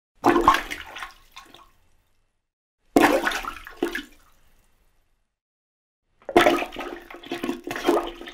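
A rubber toilet plunger worked in a toilet bowl: three bouts of watery squelching, about three seconds apart, each starting suddenly and dying away over a second or so.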